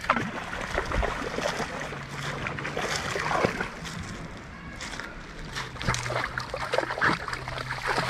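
A dog splashing as it wades through shallow water over stones, with irregular splashes and sloshes.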